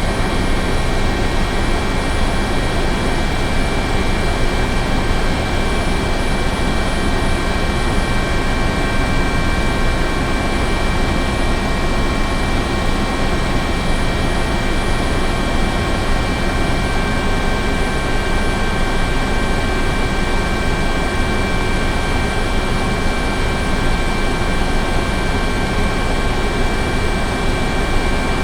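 Helicopter running steadily: a constant turbine whine, several high tones held at one pitch, over a dense rush of engine and rotor noise that never changes in level.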